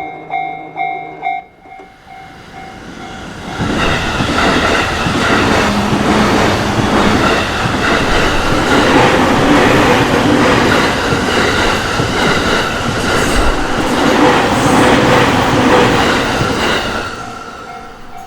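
Japanese level-crossing bell ringing about twice a second, then a JR Takasaki Line train passing over the crossing, loud for about thirteen seconds, its wheels running over the rails. The bell rings out again as the train clears.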